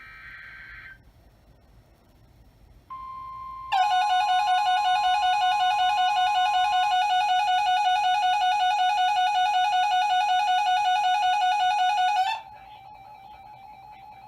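NOAA Weather Radio alert signalling: a short buzzing digital SAME header burst, then about three seconds in the steady 1050 Hz warning alarm tone. A second later a loud warbling electronic alert tone joins, runs about nine seconds and cuts off suddenly, leaving a fainter steady tone.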